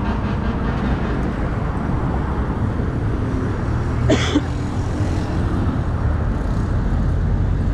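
Steady road traffic noise beside a busy highway, with a brief sharp sound about four seconds in.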